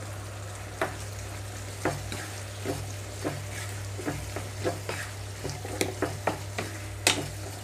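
A wooden spatula stirs bottle gourd curry in a nonstick kadai, knocking and scraping against the pan, over a low sizzle. The knocks come about once a second at first and more often in the second half. A steady low hum runs underneath.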